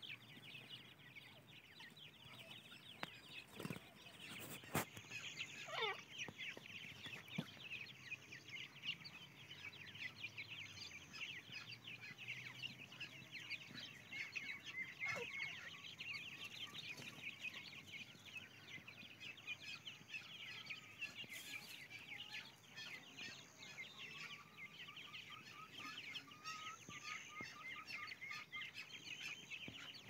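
A brood of francolin chicks peeping continuously, a dense chatter of short high cheeps. Now and then a longer call slides down in pitch.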